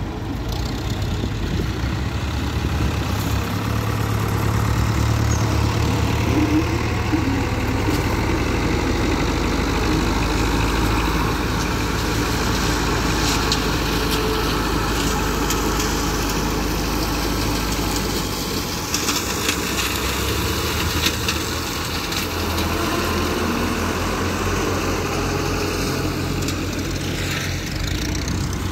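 A vehicle engine running steadily under way, with a steady low hum and road or wind noise; the engine note changes about two-thirds of the way through.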